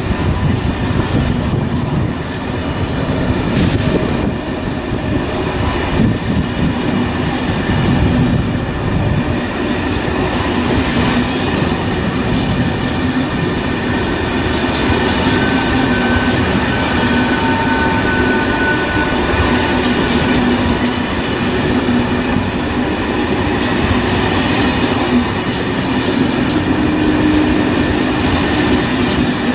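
A long train of SNCF passenger coaches passing close by, its wheels rumbling and clattering over the rail joints. Brief high wheel squeals come and go in the second half.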